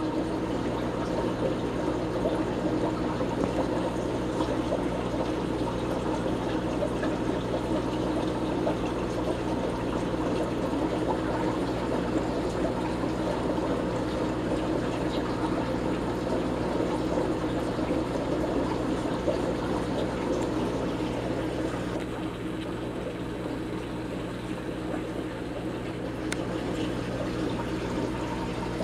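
Aquarium water trickling and splashing steadily, as from a filter return, over a low steady electric hum from the pump.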